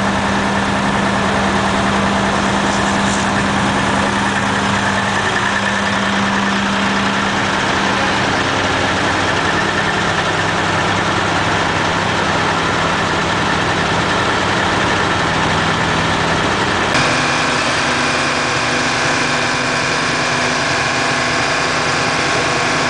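Heavy crane truck engines running steadily at a low, even speed. About seventeen seconds in, the engine tone changes abruptly.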